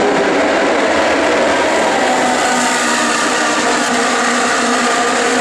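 A pack of Ferrari 458 Challenge race cars running on track, their 4.5-litre V8 engines overlapping in one loud, steady sound of several engine notes at different pitches.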